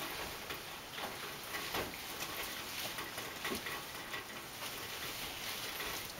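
Rain falling: a steady light hiss with scattered drip ticks.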